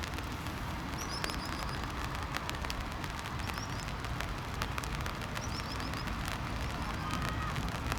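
Outdoor ambience: a steady low rumble with small birds chirping in quick runs of four or five high notes, several times over. Scattered faint clicks run through it, and a faint steady whine starts near the end.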